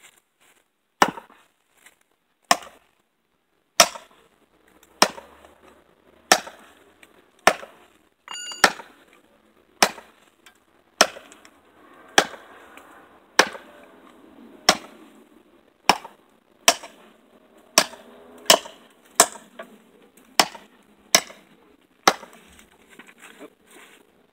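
A heavy custom butcher/camp machete chopping into a wooden 2x6 board: about twenty sharp chops, roughly one a second, coming quicker in the second half.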